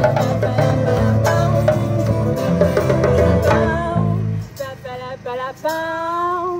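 Small live band with guitar, hand drum and a singer playing a song; about four seconds in the instruments stop and the singer carries on alone with a few held, wavering notes as the song ends.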